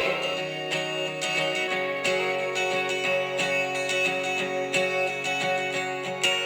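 Background music led by a strummed acoustic guitar, with steady sustained notes and regular plucked note attacks.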